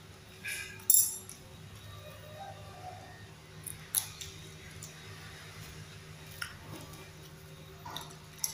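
Metal spoon clinking as it is set down on a paper-covered table: one sharp, loud clink about a second in, then lighter clicks near four seconds and near the end, over a steady low hum.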